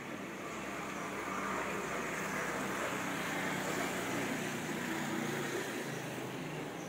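A car passing on a nearby street: steady tyre and engine noise that swells over the first few seconds and fades again toward the end.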